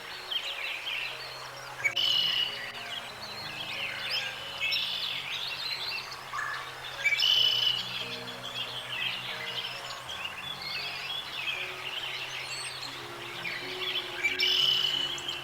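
Birds chirping busily in short high calls, swelling into louder bursts three times, over soft sustained background music.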